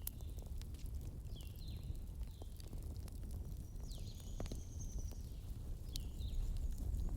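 Wood fire crackling with scattered sharp pops over a low steady rumble, while birds chirp short sweeping notes several times and give one longer high call about four seconds in.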